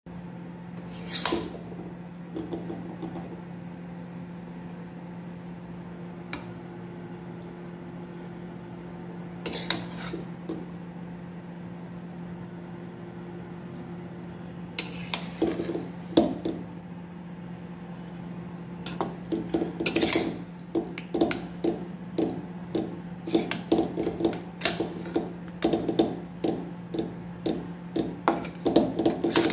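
Metal spatula scraping and clanking against a metal kadhai while stirring and scooping a thick chicken masala. There are a few separate clinks at first, then a quick run of repeated scrapes and knocks through the last ten seconds, over a steady low hum.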